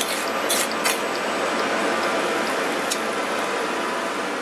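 Tomato sauce simmering with a steady hiss in a stainless steel sauté pan as butter melts into it. A metal spoon clinks against the pan three times in the first second.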